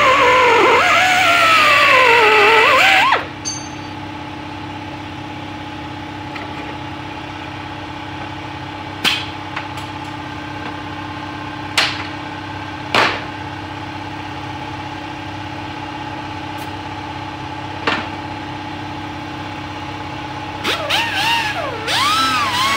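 Pneumatic angle grinder grinding a steel pipe, its pitch rising and falling under load, then cutting off sharply about three seconds in. A steady machine hum follows with a few sharp clicks and knocks, and near the end an air tool starts up again, its pitch swooping up and down.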